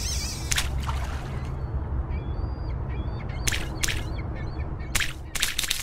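Crows cawing several times, mostly in the second half, over a steady low rumble, with a few faint small-bird chirps in between.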